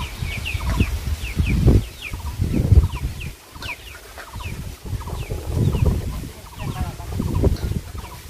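Chickens clucking in the yard, with many short, high, falling peeping chirps repeating several times a second. A low rumble swells and fades about four times and is louder than the birds.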